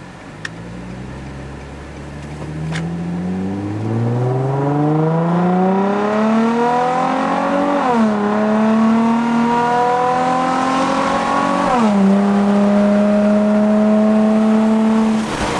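Nissan 350Z's 3.5-litre V6, breathing through a Tomei dual exhaust, accelerating through the gears. The revs climb, fall at an upshift about eight seconds in, climb again, fall at a second upshift about twelve seconds in, then hold steady at cruise. The exhaust note opens up at the higher revs.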